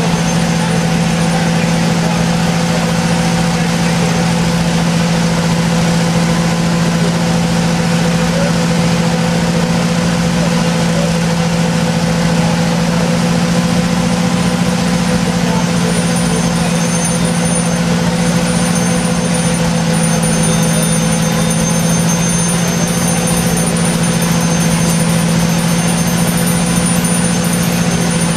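A fire engine's diesel engine running at a steady fast idle to drive its pump, a loud, unchanging low drone.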